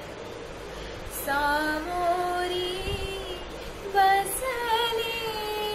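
A young woman singing a Marathi devotional song, holding long notes with ornamented glides in pitch. She starts a phrase about a second in, breaks off briefly around three and a half seconds in, and starts again at about four seconds.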